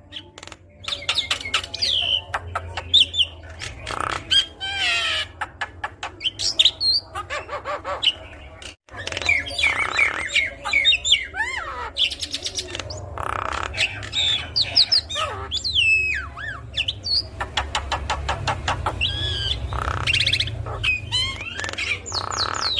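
Javan myna (jalak kebo) singing a long, varied song: gliding whistles, rapid trills and harsh squawky notes in quick succession, over a low hum. The sound cuts out for an instant a little before the middle.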